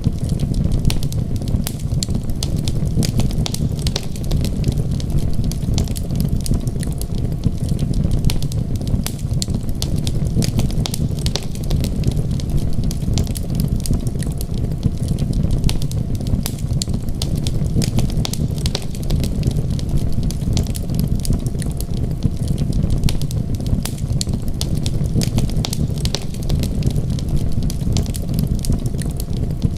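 Fireplace wood fire crackling, with frequent sharp pops over a steady low rumble.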